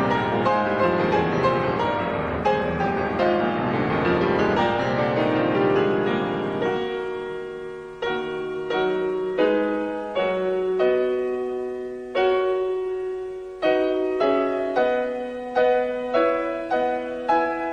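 Solo piano playing. A dense, full passage with bass runs for the first seven seconds or so, then it thins to single notes and chords struck about once a second, each one dying away.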